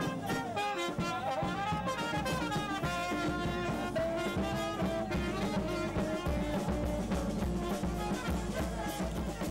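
A small acoustic band playing a lively tune, with trumpet and saxophone carrying the melody over a steady drum beat.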